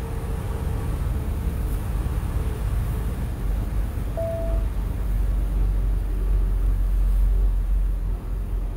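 Road and engine noise heard inside a moving vehicle's cabin as it drives on a snowy, slushy road: a steady low rumble that swells slightly in the second half. A short single tone sounds about four seconds in.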